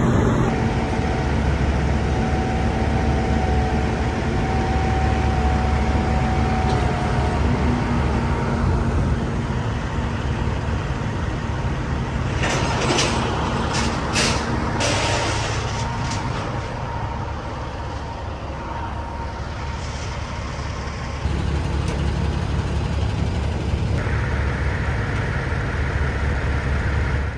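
Heavy truck engine idling steadily, with a faint steady whine in the first several seconds and a few short hisses about halfway through.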